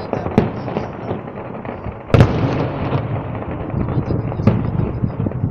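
Fireworks display: three shell bursts bang out, the loudest about two seconds in, over a continuous dense crackling.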